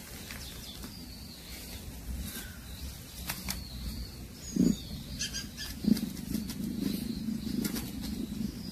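Domestic cat growling low over its prey: a short growl near the middle, then a steady rough growl from about six seconds in, with light rustling and clicks before it.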